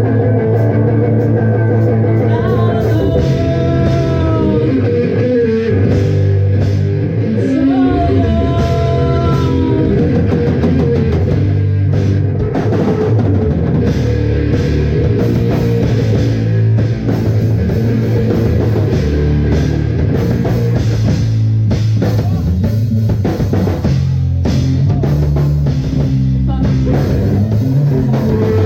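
Live rock band playing loudly: drum kit and electric guitars, with some bending, sliding pitched lines in the first few seconds.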